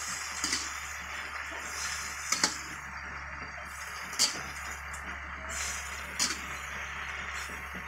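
Water spinach sizzling as it is stir-fried in a wok, with a spatula striking the pan in four sharp clinks about two seconds apart.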